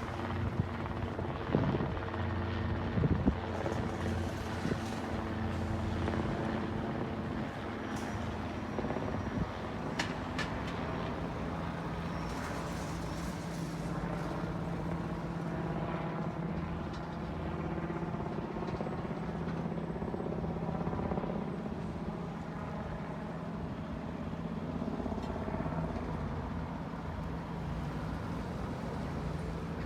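Helicopter running: a steady, unbroken engine and rotor drone, with a few brief clicks in the first ten seconds or so.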